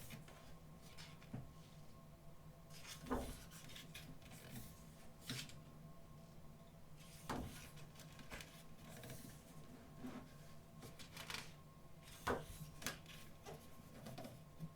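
Pages of a photobook being turned and handled: scattered short paper rustles and soft handling sounds, about one every second or two.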